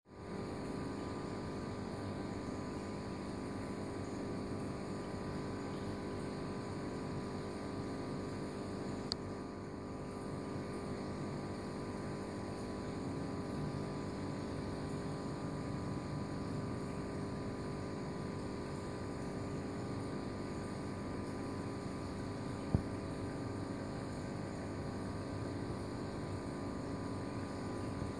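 Aquarium air pump running with a steady electric hum, feeding an air stone in the tank. Two small clicks, about nine seconds in and near twenty-three seconds.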